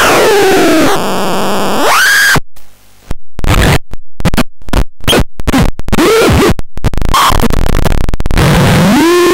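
Loud, harsh electronic noise from the Catastrophone 3 noise instrument. It opens with a falling pitch sweep, breaks after about two seconds into choppy, rapidly stuttering cut-ups, and ends with wobbling up-and-down pitch glides.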